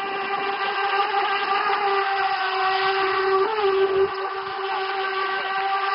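NQD Tear Into RC jet sprint boat running at speed, its 3000KV brushless motor and jet drive giving a steady high-pitched whine, with a brief wobble in pitch about three and a half seconds in.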